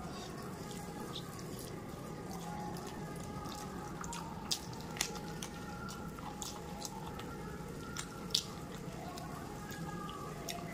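Close-up eating sounds: chewing and wet mouth smacks, with fingers squishing puffed rice and chicken-feet curry together on a metal plate. There are scattered sharp clicks, the loudest about halfway through.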